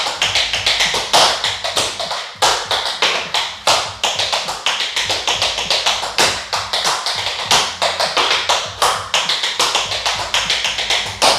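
Tap shoes' metal taps striking a hard floor in a fast, continuous run of tap steps, several a second, with a few louder accented strokes.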